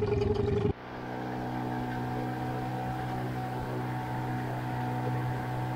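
An outboard motor pushing an inflatable boat along at steady cruising speed: an even, unchanging drone with water rushing past the hull. It follows a louder noisy stretch that cuts off abruptly under a second in.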